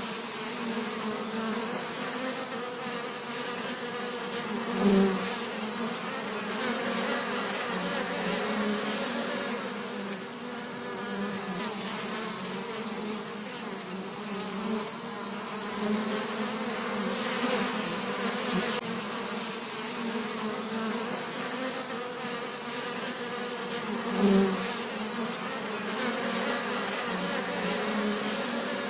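Bees buzzing continuously, a dense, wavering hum. It swells louder briefly about five seconds in and again about twenty-four seconds in.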